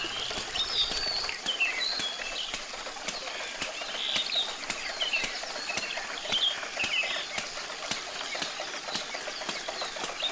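Birds chirping over a steady patter of splashing water.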